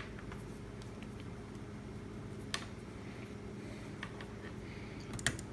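A few light, sharp clicks and taps, three or four of them spread out, over a steady low electrical hum: small handling sounds at a repair bench, such as meter probes being placed on a motherboard.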